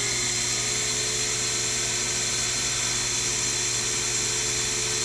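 Sherline mill's spindle motor running steadily at speed with a high whine made of several steady tones, just after spinning up.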